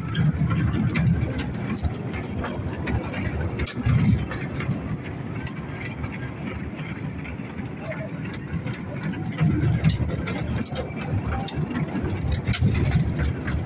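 Children's mini train ride running on its small rail track: a steady low rumble of the cars' wheels over the rails, with scattered clicks and rattles.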